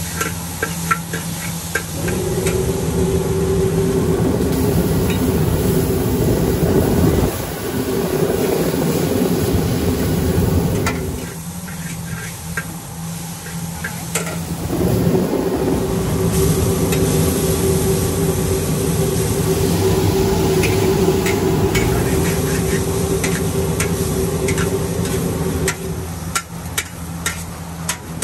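Char kuey teow being stir-fried in a wok, with a metal spatula scraping and clanking against the pan over the sizzle. A steady loud hum comes in about two seconds in, drops out for a few seconds midway, and returns until near the end.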